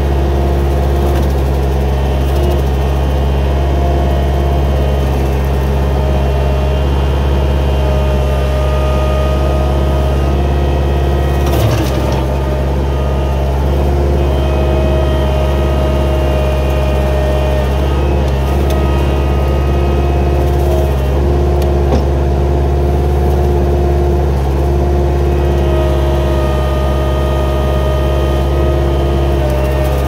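Gehl 4625SX skid steer's engine running steadily under load, with the steady whine of the Rut 60-inch hydraulic brush cutter on top. A brief knock comes about twelve seconds in.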